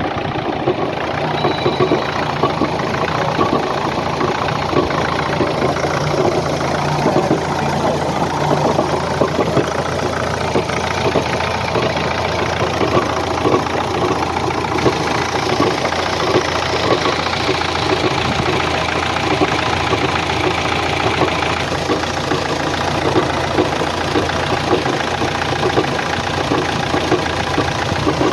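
A 2011 Opel Astra J's engine idling steadily with a fast, uneven ticking or knocking mixed into its hum: the strange noise the owner cannot explain.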